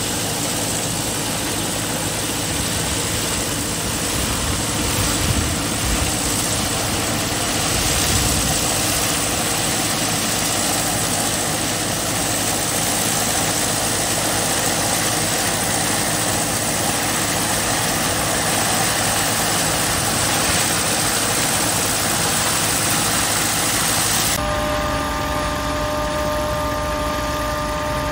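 John Deere 6430 tractor running with a Collard pneumatic leaf remover blowing air into the vine canopy: a loud, steady rushing noise over the engine. About 24 seconds in the sound changes abruptly: the hiss drops away and a steady drone with several fixed pitches takes over.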